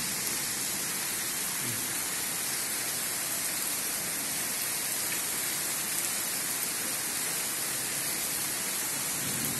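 Heavy rain pouring steadily: a dense, even hiss.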